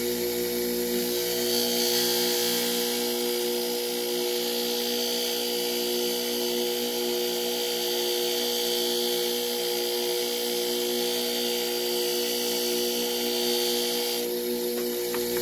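Motor-driven leather buffing wheel running with a steady hum. A higher hiss joins it about a second in as a chisel is honed against the compound-loaded leather, and it cuts off sharply near the end.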